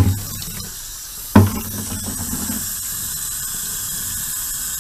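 A thump at the start and another about a second and a half in, then water running steadily from a sink faucet over a fish being rinsed.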